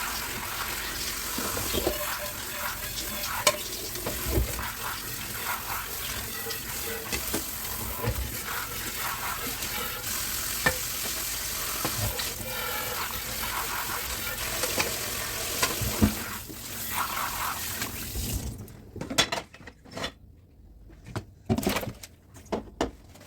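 Water running from a kitchen tap into a sink while dishes are washed, with scattered clinks and knocks of dishes. About three-quarters of the way in, the running water stops, leaving a few separate knocks and clatters.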